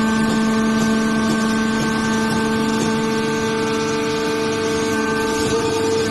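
Hydraulic baler's electric motor and pump running with a steady hum that holds one pitch throughout.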